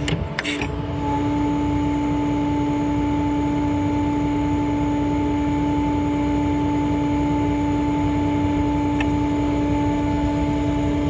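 Hydraulic outrigger system of a service truck working off its International MaxxForce 7.6 diesel: after a couple of clicks, a steady whine sets in about a second in over the engine's constant running and holds level as the outriggers are lowered.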